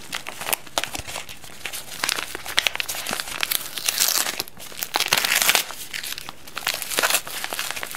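White plastic postal mailer bag being cut open with scissors and handled, its plastic crinkling and crackling irregularly throughout.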